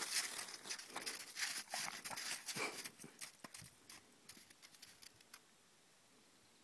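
Crunching, scuffing steps on crusted, icy snow. They are dense for the first three seconds, then sparser, and stop a little after five seconds in.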